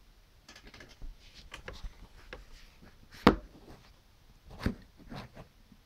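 Handling noise on a wooden desk: light taps and rustles, one sharp knock about three seconds in and two softer knocks near the end.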